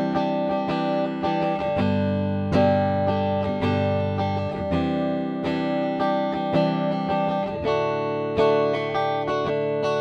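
Ibanez GRGR121M electric guitar played clean with both pickups selected together: strummed and picked chords ringing out, a new chord struck about every second.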